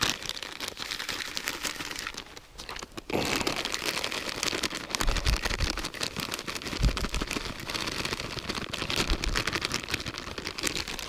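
Plastic packet of dry groundbait crinkling and rustling as it is handled, with the crumb pouring from it into a plastic bowl. It is a dense crackly rustle that dips briefly a couple of seconds in, with a few low bumps.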